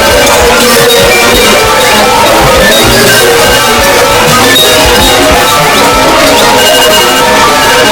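Many phone alarm tones and alarm clocks going off at once: a loud, dense, overlapping jumble of short electronic tones and melodies at many different pitches.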